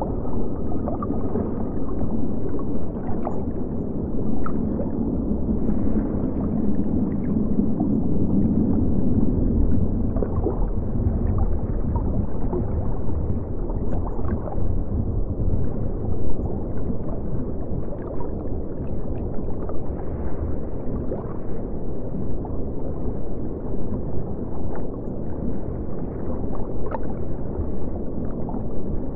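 Underwater-style water ambience: a steady low rumble of moving water with small bubbling gurgles scattered through it.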